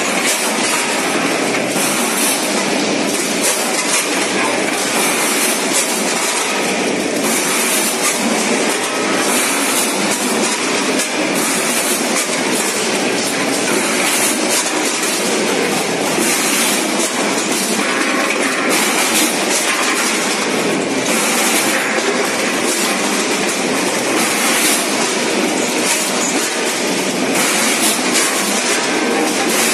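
Automatic multihead weigher running on a chicken-parts packing line: a dense, continuous metallic clatter as its stainless steel hopper gates open and shut.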